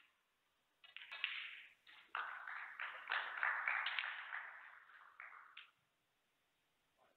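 Snooker balls in play: sharp clicks of the cue and balls striking each other, followed by a few seconds of dense rattling and clicking that dies away.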